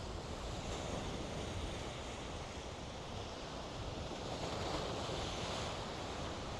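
Sea waves washing onto the shore, with wind rumbling on the microphone; a wave surges in louder about four and a half seconds in and draws back.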